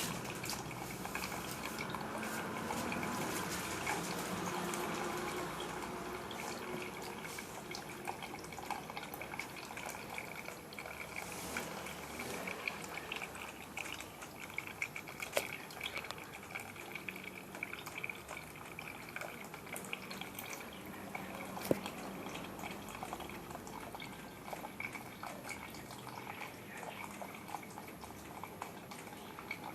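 Tabletop water fountain running: a steady trickle and splash of falling water, dotted with small drips, a little fuller in the first few seconds.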